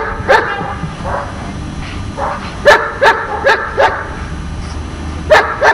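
A dog in protection training barking in bursts: a few barks at the start, a quick run of four loud barks about halfway through, and two more near the end.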